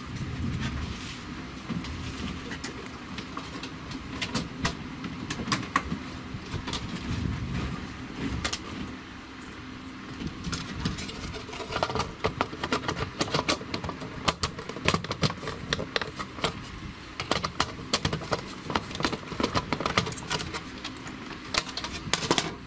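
Plastic casing and circuit board of a Seaward Europa Plus PAT tester being handled during reassembly: many scattered light clicks and knocks of hard plastic, over a steady low background rumble.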